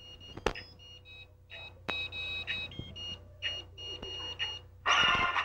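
A run of short, high electronic beeps at shifting pitches, like a simple synth melody, with a few sharp clicks. Music comes in loudly near the end.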